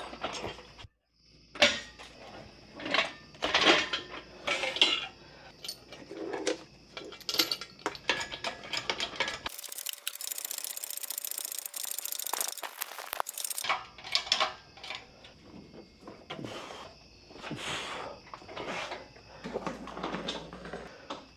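Metal tools and engine parts clanking and clinking in irregular knocks as work is done on an engine. About halfway through there is a few seconds of steady hiss.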